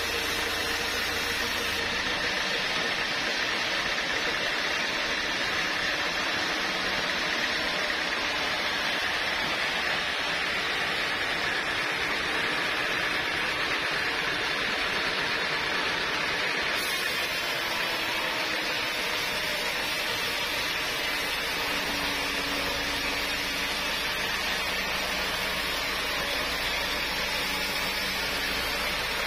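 Sawmill machinery running with a steady, even noise that does not let up.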